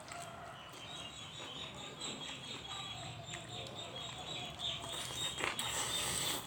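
Close-miked eating sounds: wet chewing with small mouth clicks, then a louder noisy rush lasting about a second near the end.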